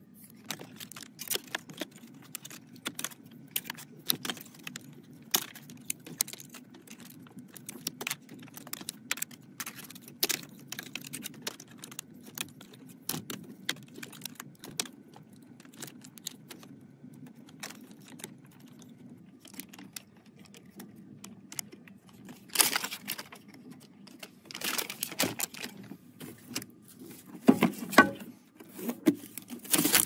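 Small plastic parts and thin cables being handled over a crinkly plastic bag: a steady run of small clicks and rustles, with louder bursts of plastic crinkling in the last several seconds.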